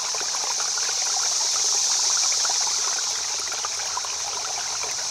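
Running water, a stream trickling and splashing steadily, with a strong high hiss.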